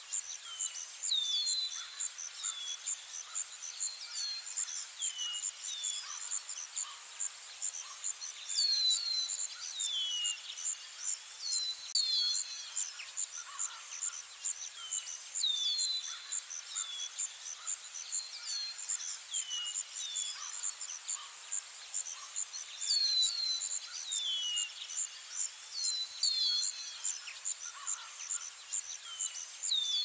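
Outdoor nature ambience: insects chirping in a fast, steady high-pitched pulse, with small birds calling over it in short downward-sweeping chirps every second or two.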